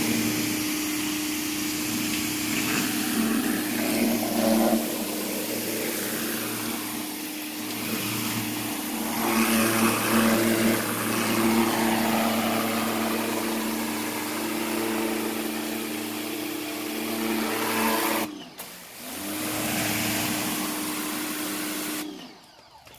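Engine-driven pressure washer running steadily, with the hiss of the spray from the wand. About 18 seconds in, the engine note and the hiss dip briefly, then pick up again, and the sound cuts off sharply near the end.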